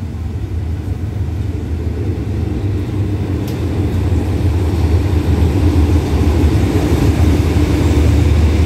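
Hitachi diesel-electric locomotive 4519 pulling in slowly, its low engine drone growing steadily louder as it draws up and passes close by.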